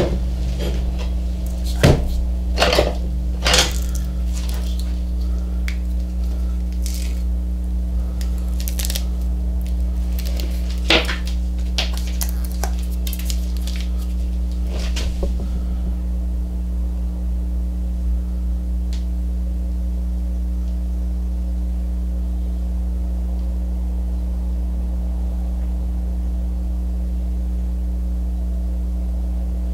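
Metal clanks and taps of a steel pipe clamp and a steel square being handled on a workbench. They come in scattered knocks through roughly the first half, some with a brief ring, over a steady low hum that carries on alone afterwards.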